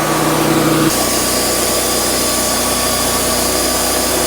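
Wood-Mizer LT40 sawmill's 26.5-horsepower engine and band saw running steadily. About a second in, the pitch of the running sound changes abruptly.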